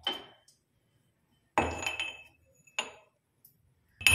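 Stainless steel pestle clinking against a steel mortar, a few sharp metallic knocks that each ring briefly. The loudest comes about a second and a half in.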